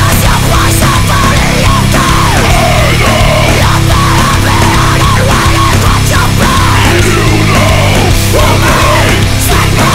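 Loud heavy metal music with distorted guitars.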